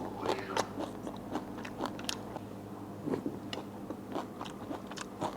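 A person chewing crisp food close to the microphone: a quick, irregular run of crunching bites and mouth clicks.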